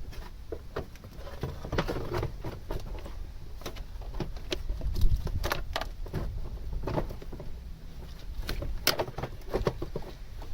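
Irregular metallic clicks, clinks and clunks of hand work refitting the air box and intake parts on a car engine, over a steady low rumble.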